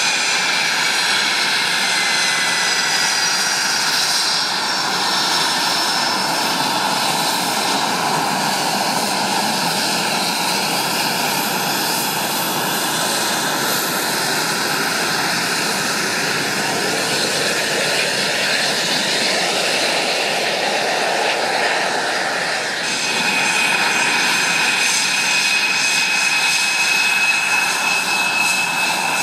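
Saab JAS 39 Gripen fighter's single jet engine running at low power as it taxis on a road: a steady rushing noise with a high whistle that falls in pitch over the first few seconds. Near the end the sound grows a little louder and a new steady high whistle comes in.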